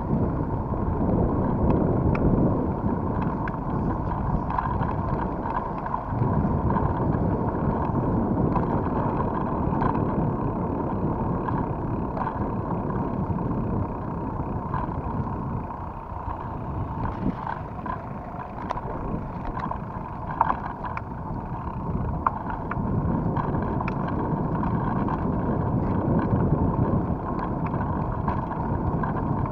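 Wind rushing over the camera microphone and tyre noise from a mountain bike riding over wet pavement, swelling and easing with speed, with scattered small clicks and rattles from the bike.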